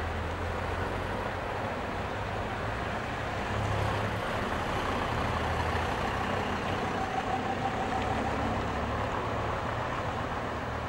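Vintage buses' engines running as the buses drive past one after another: a steady low drone, with a short faint whine a little past the middle.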